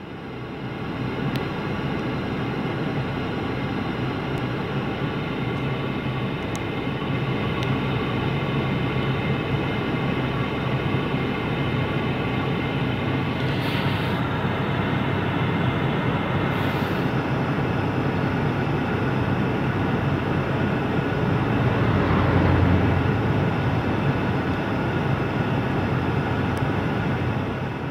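Steady drone of a car running, heard from inside the cabin: a low hum with a held ladder of even tones. It swells slightly a little over three-quarters of the way through.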